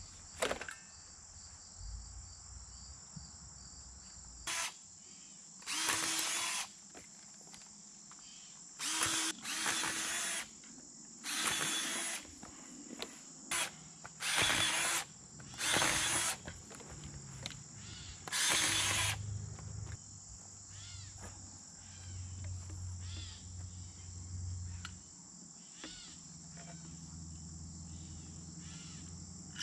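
Steady high insect trilling, broken by about nine short, loud scraping bursts in the first two-thirds as PVC pipe and elbow fittings are worked and pushed together by hand.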